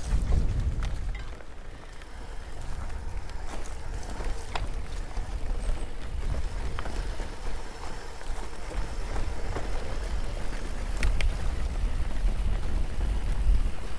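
Riding noise from an electric mountain bike on a rough, rocky track: a steady low rumble of wind on the microphone and tyres, with a few sharp clicks and rattles from the bike. It grows a little louder toward the end.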